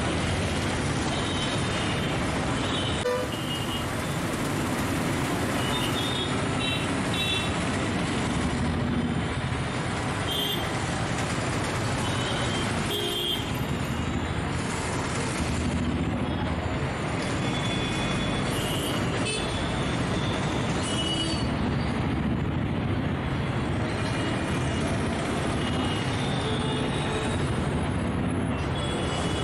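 Batter fritters sizzling as they deep-fry in a wok of hot oil, a steady hiss. Street traffic runs behind it, with short vehicle horn toots now and then.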